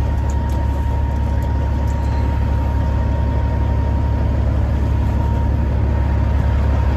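Semi truck's diesel engine idling with a steady low rumble, and a thin, steady whine above it.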